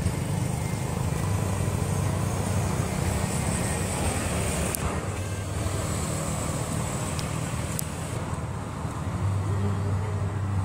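Steady low rumble of motor traffic, with a few faint clicks about five and eight seconds in.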